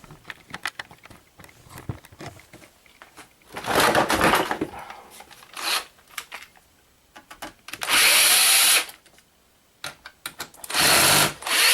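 Power drill-driver backing screws out of a flat-screen monitor's casing, run in several whirring bursts of about a second each, with small clicks and handling noises between.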